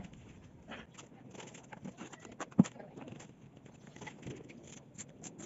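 Light scattered clicks and taps of stone tile work, with one sharp knock about two and a half seconds in, as Miracema stone slabs are set on adhesive mortar.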